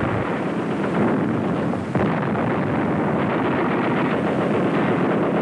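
Continuous battle noise: rapid gunfire crackling over a steady rumble.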